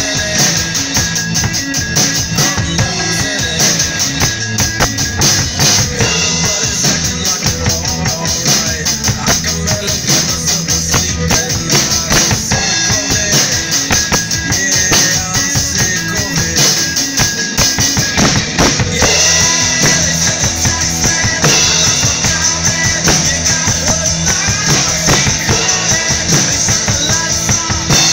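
Acoustic drum kit with several toms and cymbals played in a steady rock beat along with a recorded rock song.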